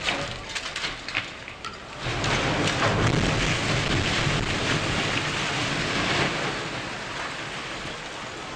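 A concrete high-rise collapsing, brought down by hydraulic cylinders rather than explosives. Scattered crackles of falling debris lead in; then, about two seconds in, a sudden, loud, continuous rumble of the floors coming down, which eases off over the last couple of seconds.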